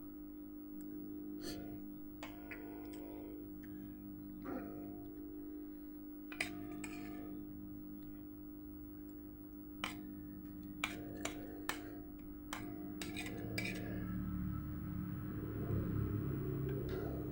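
Spoon clinking and scraping on a plate in a scattered series of sharp clicks over a steady low hum; a low rumble builds near the end.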